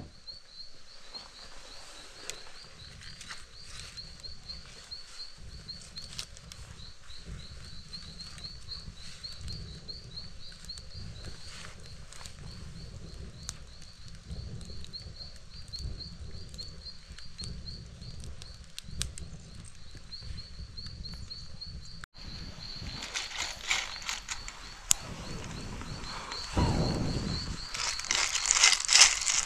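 Outdoor nature ambience: a steady, high-pitched chirping repeated several times a second runs under a low rumble. About two-thirds of the way in the sound cuts, and clicking and crackling handling sounds follow, growing louder near the end.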